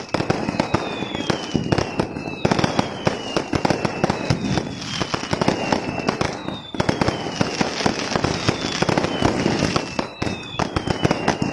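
Fireworks display: dense, rapid crackling bangs going off without a break. Over them a shrill falling whistle recurs about every second and a half.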